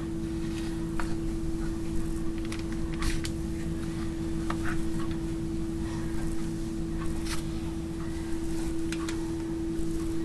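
Faint clicks and light scrapes of a spreading knife dragging through soft melted chocolate in a foil-lined pan, over a steady low hum.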